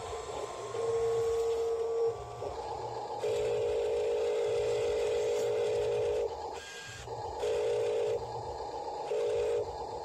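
Whine of the electric tipper motor of a Huina RC dump truck, running in several start-stop bursts (the longest about three seconds) as the bed is raised to tip out its load of soil.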